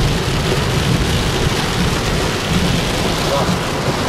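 Heavy rain beating on the roof and windshield of a moving car, heard from inside the cabin as a steady, dense hiss.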